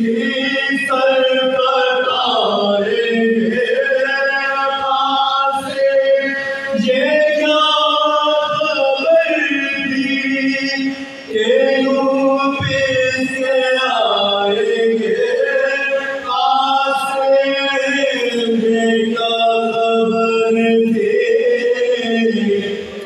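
Soz khwani: several men chant a Muharram lament together into microphones with no instruments, drawing out long held notes. There is a brief pause about eleven seconds in.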